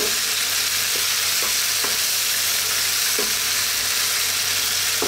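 Pork liver slices sizzling in soy sauce, lemon juice and garlic in a nonstick frying pan as a wooden spatula stirs them. The sizzle is a steady hiss, with a few light knocks of the spatula against the pan.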